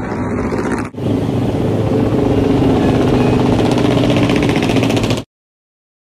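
Moto3 racing motorcycle's single-cylinder 250 cc four-stroke engine running loudly and steadily in the pit lane. The sound breaks off for an instant about a second in and stops dead a little after five seconds.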